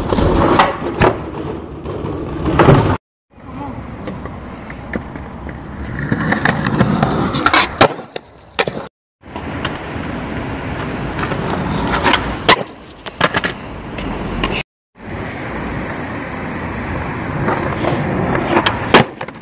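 Skateboard wheels rolling on concrete and paving, with sharp clacks of the board popping and landing several times. The sound drops out briefly three times.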